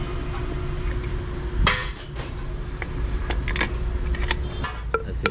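Metal engine parts and hand tools clinking and tapping against each other during diesel engine assembly: one sharp clank about a third of the way in, then a run of short, ringing clinks near the end.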